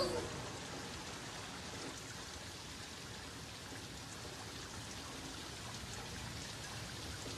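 Steady rain falling on a wet street, with runoff water running along the gutter into a storm drain.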